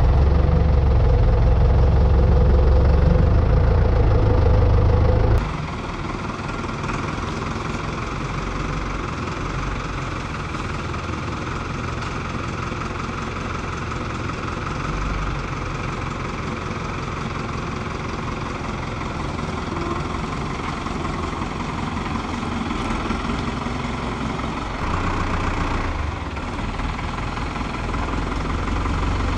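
Farm tractor engine running while its front loader handles big bags of fertilizer; loud and close for the first five seconds or so, then suddenly quieter and more distant as the tractor works across the yard.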